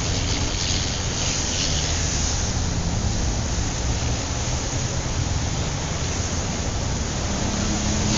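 Motorcycle, his Honda Tornado, riding at road speed: wind rushing over the camera microphone over a low, steady engine drone and road noise.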